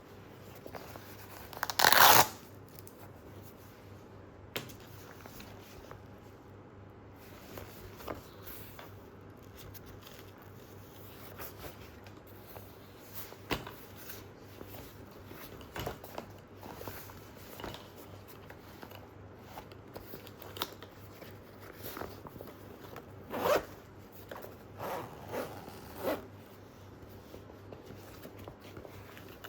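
Zipper on a ripstop nylon shoe bag pulled in one quick loud run about two seconds in, followed by quieter rustling of the fabric and light clicks of handling, with a few stronger pulls or rustles near the end.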